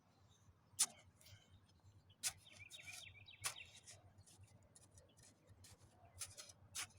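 Faint scraping and rubbing of soil and a hand trowel during transplanting, with a few sharp clicks, and a bird chirping faintly about three seconds in.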